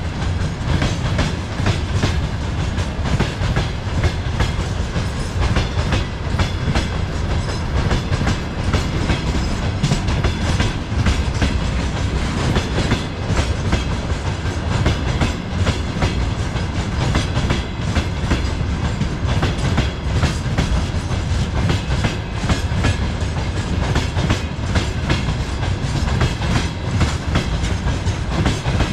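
Freight train rolling past on the main line: a steady rumble of wagons with the wheels clacking over the rail joints.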